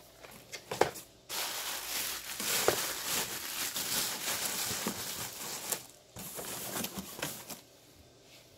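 Plastic bubble wrap crinkling and rustling as it is stuffed into a cardboard shipping box, with a few light knocks of cardboard. It dies away near the end.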